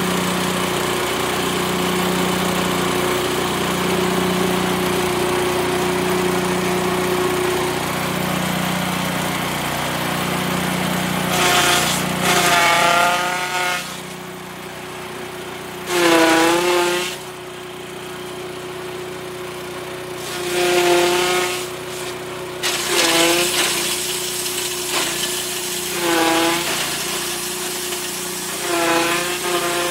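A chaff cutter driven by a 7 hp petrol engine, running and chopping grass and corn leaves. For the first dozen seconds it chops steadily; after that it runs more quietly, with about seven louder surges of chopping as fresh handfuls are fed in, the engine note dipping briefly with each one.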